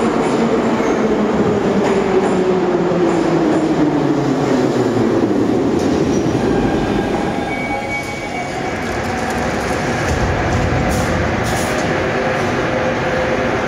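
Ezh3 metro train arriving at a station platform and braking to a stop: the motors' whine falls steadily in pitch over the first several seconds over the rumble of wheels on rail, then the sound settles as the train halts.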